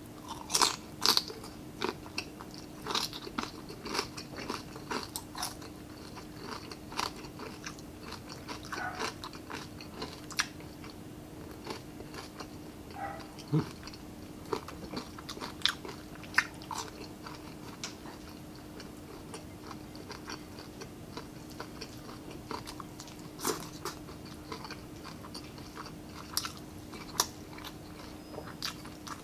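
Close-up crunching and chewing of crispy breaded fried pork (pork pinaputok), eaten by hand: sharp crunches come thick and fast for the first few seconds, then thin out into scattered crunches as the chewing goes on.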